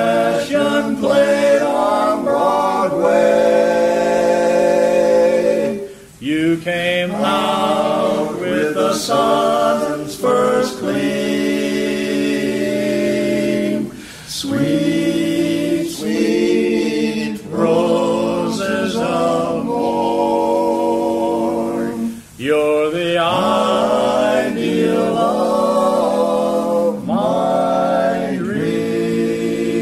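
Male barbershop quartet singing a cappella in four-part close harmony, holding long chords, with brief breaks about every eight seconds.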